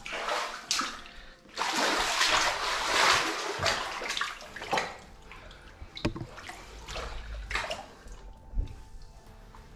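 Water splashing and sloshing as someone wades and clambers through a cave, loudest in the first few seconds, with scattered knocks and scrapes against rock and quieter movement after about five seconds.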